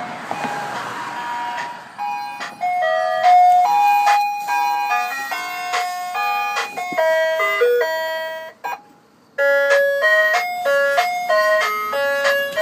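Ice cream truck jingle: a quick stepping melody of electronic chime notes from the vendor golf cart's music box, starting about two seconds in after a steady tone over a hiss, breaking off briefly a little after halfway and then starting again.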